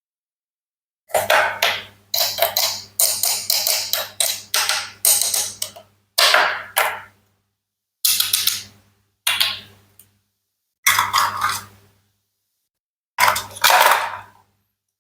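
Toy fruit and vegetables of wood and plastic being cut with a toy knife: crackly, clicking strokes, a quick run of them followed by single cuts every second or two.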